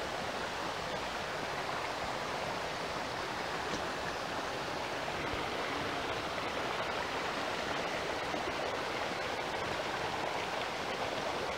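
Shallow mountain stream running over rocks, a steady rushing of water.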